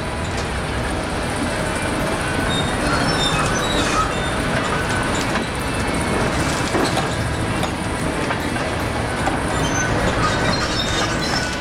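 Heavy tracked log loader working: steady engine noise with short high metallic squeals from its tracks and swing, and a few knocks.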